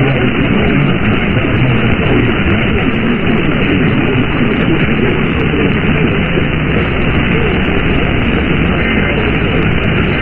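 Loud, steady radio static: an even hiss from a radio receiver carrying no clear programme.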